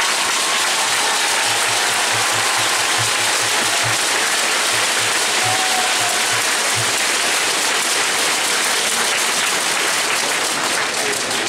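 Arena crowd applauding steadily. A low, regular thudding, about four beats a second, runs under the applause for several seconds in the middle.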